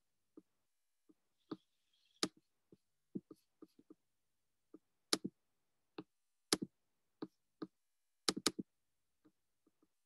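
Irregular sharp clicks and taps of a computer mouse and keyboard being worked, some single and some in quick pairs, with a tight cluster a little before the end.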